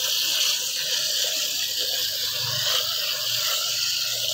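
Water jetting from a garden hose's spray nozzle into a bucket of water, a steady hiss as the bucket fills and the fertilizer solution is stirred.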